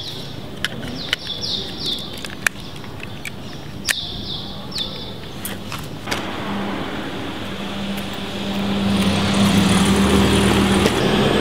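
A car drives past close by, its engine and tyre noise building from about six seconds in and loudest near the end. Before that, over street background, birds give short repeated chirps and there are a few light clicks.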